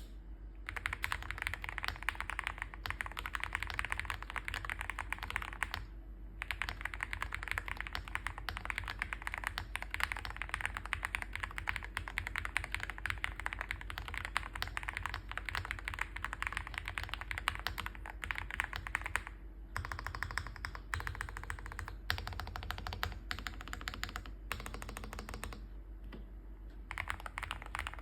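Fast typing on a Weikav Record mechanical keyboard with Cherry Hyperglide Black linear switches: a dense stream of key strikes in long runs. The runs break off for short pauses about six seconds in, again near twenty seconds, and a few more times towards the end.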